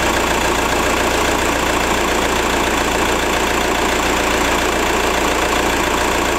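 VW Passat B5 engine idling steadily, heard close up in the open engine bay, running on freshly changed oil just after being started.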